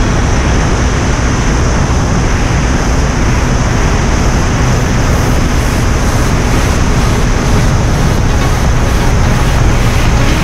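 Wind rushing over the helmet- or bike-mounted action-camera microphone at highway speed, with the KTM Duke 250's single-cylinder engine running steadily underneath. The level stays constant, with no gear changes or speed changes.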